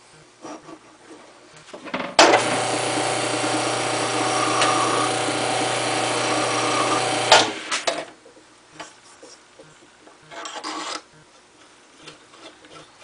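A small wood lathe runs for about five seconds, starting and stopping abruptly, with a flat file held against the spinning aluminium mandrel, rasping down the crests of its threads slightly. Quieter handling clicks and a brief scrape come before and after.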